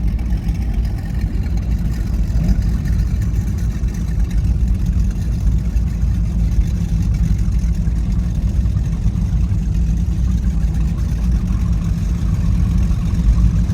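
High-performance powerboat engines running steadily at low speed, a continuous deep rumble with no revving up.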